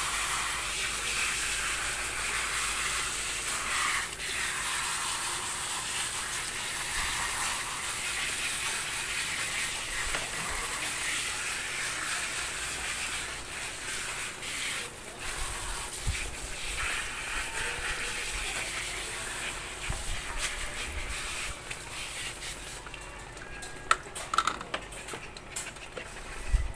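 Water spraying from a hose spray nozzle, rinsing a small dog's wet coat in a steady hiss. The spray stops about 23 seconds in, leaving a few light knocks and handling sounds.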